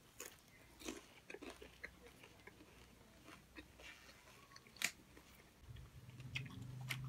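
Faint, close-up mouth sounds of people chewing raw peruk (Indian pennywort) leaves: scattered small crunches and wet clicks, with one sharper click about two-thirds of the way through. A low steady hum comes in near the end.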